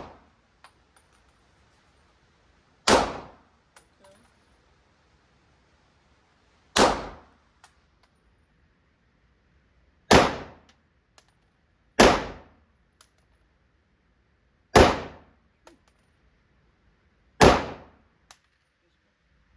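PSA Dagger 9mm pistol fired slowly, six single shots spaced two to four seconds apart, each a sharp crack with a short ringing tail.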